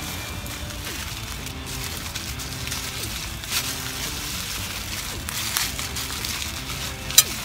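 Small wood fire of split kindling crackling in a metal fire grill, with a few pops and one sharp, loud crack near the end.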